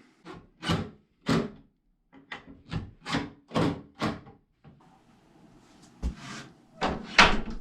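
A series of about ten short, sharp knocks and thuds at an irregular pace, with a quieter gap about five seconds in.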